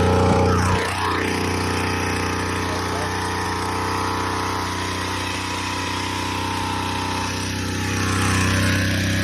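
Titan TT5MTP26-2 26cc two-stroke petrol multi-tool engine running just after being pull-started. About a second in it drops from higher revs to a steady idle, then picks up slightly near the end.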